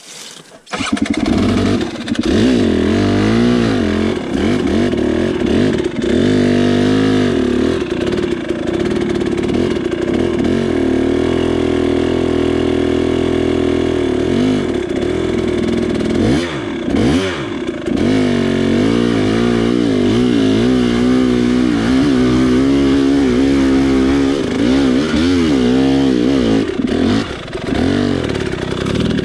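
KTM 300 XC two-stroke dirt bike engine revving hard in first gear on a steep, loose climb. It jumps up sharply about a second in, then its pitch keeps rising and falling as the throttle is worked, with short drops in revs about halfway through and again near the end.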